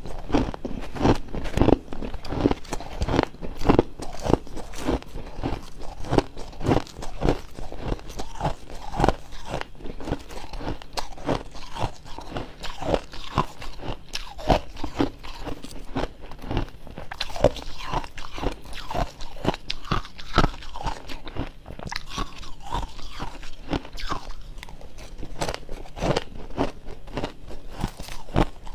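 Close-up crunching of freezer frost being bitten and chewed, a dense run of sharp crackly crunches several times a second.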